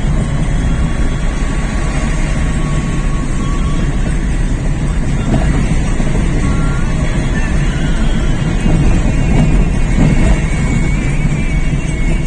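Steady, loud low rumble of a moving vehicle, with faint wavering high tones in the second half.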